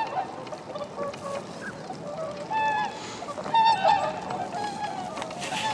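A flock of swans calling: many short, overlapping calls, with a louder cluster about halfway through.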